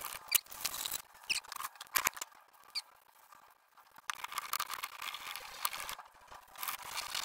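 Very fine emery cloth on a block being rubbed back and forth over the aluminium gasket face of a Rover V8 cylinder head: a scratchy hiss with a few short squeaks, easing off briefly about three seconds in.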